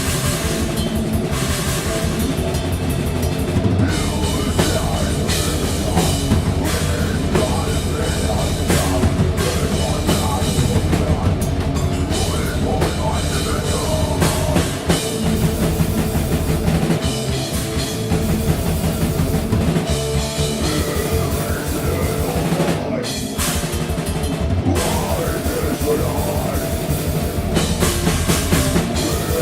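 Death metal band playing live: fast, dense drum-kit hits with bass drum and cymbals under heavy distorted instruments. There is a brief break in the playing about 23 seconds in.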